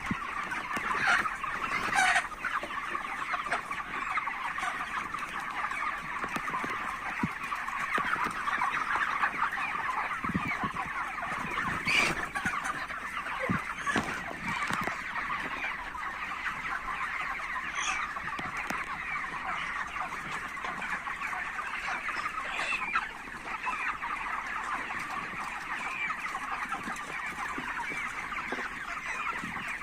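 A large flock of chickens clucking continuously in a dense, overlapping chatter, with a few louder single calls standing out now and then.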